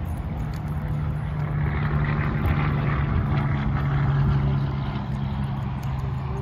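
A steady engine hum that swells louder in the middle and eases off near the end.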